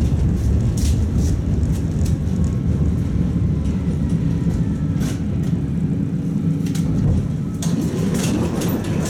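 Tatra T3 tram running along the track, heard from inside the passenger car: a steady low rumble of wheels and running gear, with scattered sharp clicks and knocks from the wheels and car body.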